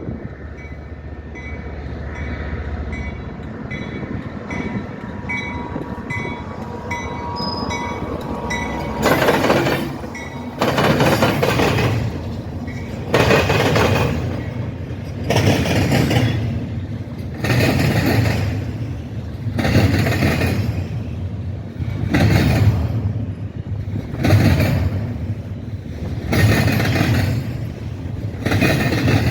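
Train cars rolling over a railroad diamond crossing: from about nine seconds in, the wheels clatter loudly in a burst roughly every two seconds as each car crosses. Before that there is a low rumble with faint, regular dings about twice a second.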